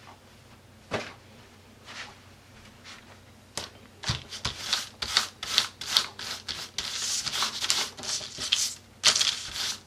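Three light taps, then about three and a half seconds in, quick repeated rubbing and scuffing strokes of a hand on paper, as inky paper is pressed and rubbed against a journal page.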